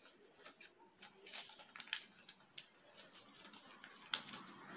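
Sheet of baking parchment rustling faintly under fingertips as a fold is pressed and run along to crease it, with scattered light crackles and a couple of sharper ticks about two and four seconds in.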